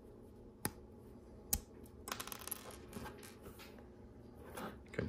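Plastic LEGO Technic pieces clicking and clattering as they are handled: two sharp clicks about a second apart, then a short spell of light rattling.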